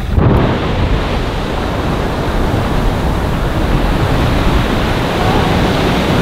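Geyser erupting: a steady rush of water and steam that sets in suddenly right at the start and keeps going.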